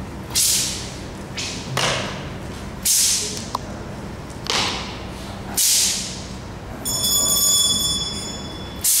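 A taiji broadsword and its silk scarf whooshing through the air in repeated cuts, about once a second, each swish fading with echo. From about two seconds before the end, a ringing of several steady high tones plays for under two seconds.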